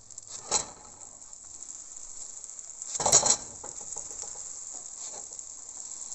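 Pancake batter sizzling in a hot frying pan, a steady hiss. A slotted spatula knocks and scrapes against the pan twice, briefly about half a second in and louder around three seconds in.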